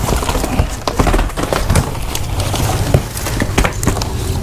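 Rustling and crackling of a woven plastic sack and cardboard being pulled about and gathered up, with many small crinkles and clicks.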